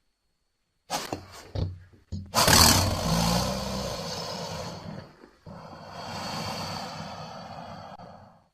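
Monster roar sound effects: a few short bursts, then a long, loud roar starting about two seconds in, followed by a second, quieter drawn-out roar that stops just before the end.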